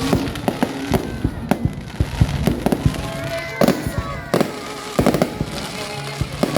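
Fireworks going off: many sharp bangs and pops at an irregular pace, with some thin gliding tones sounding among them in the middle.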